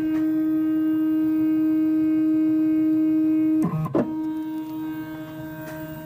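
Steady pitched machine whine from the CNC-converted X2 mini mill's motors and drive. About three and a half seconds in it breaks briefly with a dip in pitch, then carries on more quietly.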